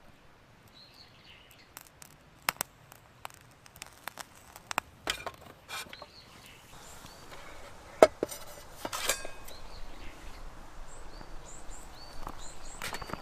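Light clicks and taps of camp gear being handled, then an aluminium mess tin set down on a small folding pocket stove, a sharp metallic knock about 8 s in followed by a few more clinks. Faint bird chirps can be heard near the start and end.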